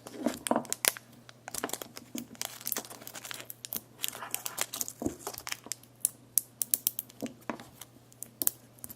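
Tape being peeled off a coiled power cord, with irregular crackling and crinkling of the tape and plastic as it is pulled away. A faint steady hum runs underneath.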